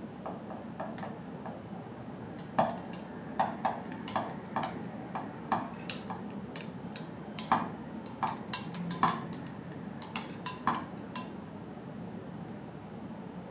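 A spoon stirring milk into strawberry purée in a tall drinking glass, clinking irregularly against the glass wall. The clinks stop near the end.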